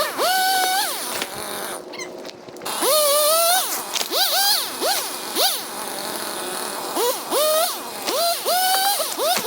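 A high voice in a series of sliding, held notes, each rising quickly, holding and then falling away, with a brief total dropout about two seconds in.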